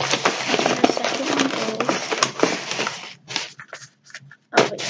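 Crinkling and crackling of a plastic blind-bag packet being squeezed and torn open by hand. Dense crinkling for about three seconds, a few scattered crackles, then dense crinkling again near the end.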